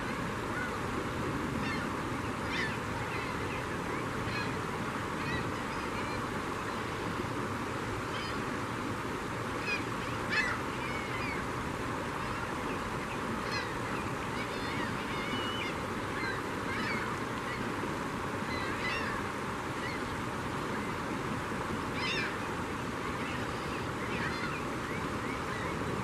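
A flock of gulls calling over and over in short, scattered squawks as they swoop and feed, over a steady rush of flowing river water.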